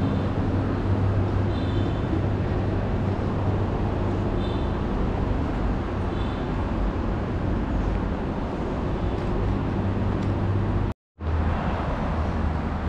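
City street traffic noise: a steady wash of passing vehicles over a low engine drone, with a few faint short high chirps. The sound drops out for a split second near the end.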